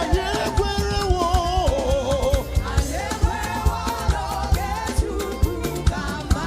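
Live gospel music: singing over a full band with bass, keyboard and a steady percussion beat.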